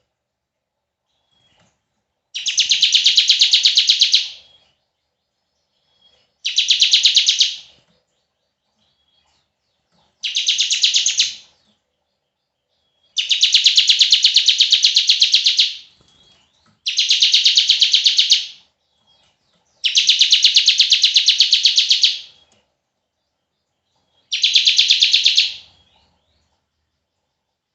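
Bar-winged prinia (ciblek) singing its 'bren' song: seven long, rapid, buzzing trills that sound like a cicada, each one to three seconds long, with short silences between them.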